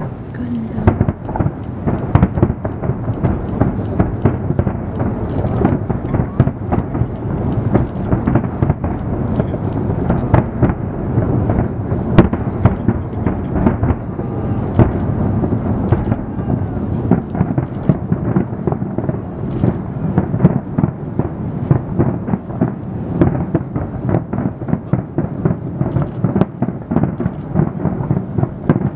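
Aerial fireworks display in a dense barrage: shell bursts heard as a continuous rolling rumble, with many sharp bangs and crackles in quick succession.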